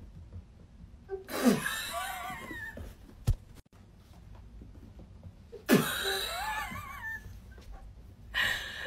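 Two loud, wavering vocal cries about four seconds apart, each starting with a sudden breathy burst and lasting over a second, with a single sharp knock between them.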